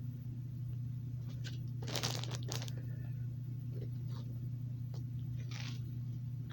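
Plastic bread bag crinkling and rustling in several short bursts as it is handled, the biggest about two seconds in, over a steady low hum.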